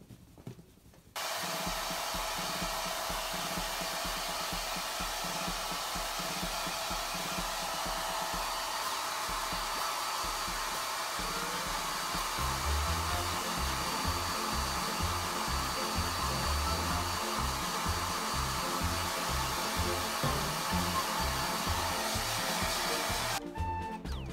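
Handheld hair dryer blowing on a wet dog's coat: it switches on abruptly about a second in, runs steadily, and cuts off just before the end. Background music with a rhythmic bass line comes in about halfway.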